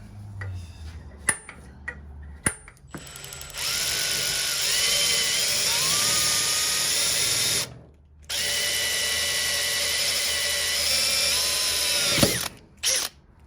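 Electric power drill drilling into a burner pipe fitting in two runs of about four seconds each, with a short pause between. The motor pitch shifts up and down as the bit loads and frees. A few sharp clicks of handling come before it.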